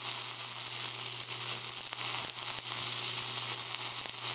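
Dual shield (gas-shielded flux-cored, E71T-1) arc welding vertical uphill on steel plate: the steady crackling sizzle of the arc, with a steady low hum under it.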